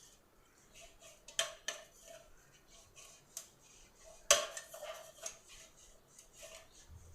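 Metal cake bowl being handled as it is greased with ghee: light clinks and scrapes, with a sharp knock about a second and a half in and a louder one about four seconds in, each leaving the bowl ringing briefly.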